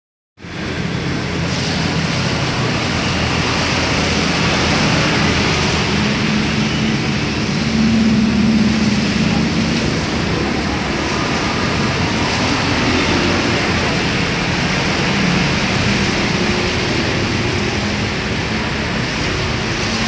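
Steady road traffic noise: a continuous rush of passing vehicles, with a low engine hum rising briefly about eight seconds in.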